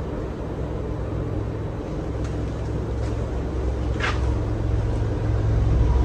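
Casablanca Delta II ceiling fan running, with its Samsung K55 motor turning the blades. It makes a steady low air rumble that slowly grows louder, with one brief tick about four seconds in.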